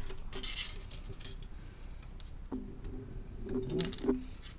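Plastic model-kit sprue frame being handled and knocked about over a cutting mat: scattered light clicks and knocks, each with a short hollow ring, busiest near the end.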